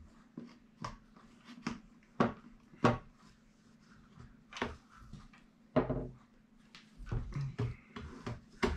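Sections of a metal detector's telescoping shaft being slid, fitted and adjusted by hand: irregular clicks and knocks of the parts locking together, the sharpest about two and three seconds in and near six seconds, with duller knocks near the end.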